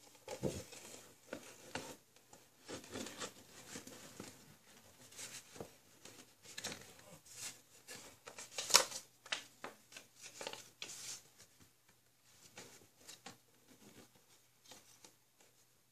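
Cardboard DVD packaging being handled and folded open: irregular rustling, tapping and light clicks, with one sharper click about nine seconds in.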